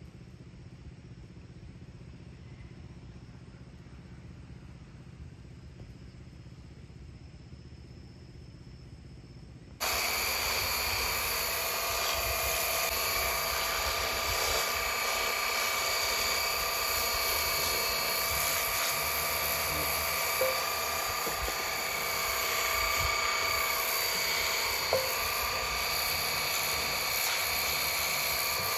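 A handheld battery-powered pressure washer starts suddenly about ten seconds in and runs steadily: a pump-motor whine with several held tones over the hiss of the water jet hitting a mower's metal blade cover. The stretch before it is quiet, with only a faint low hum.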